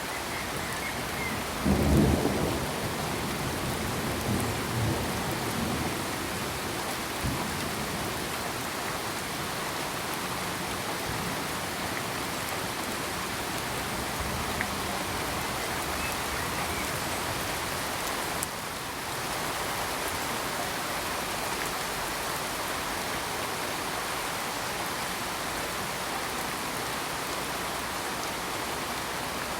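Steady, heavy rainfall with a loud rumble of thunder about two seconds in that dies away over the next few seconds, with a few fainter rumbles after it.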